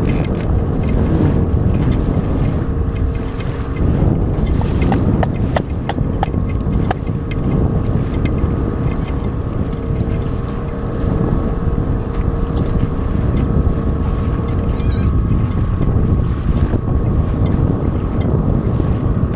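Small outboard motor running steadily at trolling speed under heavy wind buffeting on the microphone, with a few sharp clicks about five to seven seconds in.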